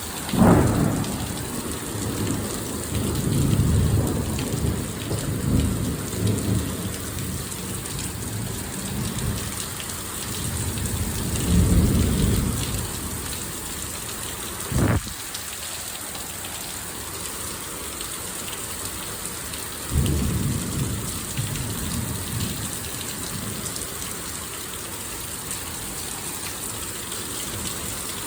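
Torrential thunderstorm rain hissing steadily, with thunder from cloud-to-ground lightning: a sharp clap about half a second in rolls into low rumbling that lasts some twelve seconds. A short sharp knock comes about halfway through, and a second clap at about twenty seconds rumbles for a few seconds.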